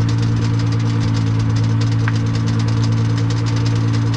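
Nissan GT-R R35's twin-turbo V6 running at a steady cruise: a constant, even-pitched drone mixed with tyre and road noise, picked up close to the front wheel.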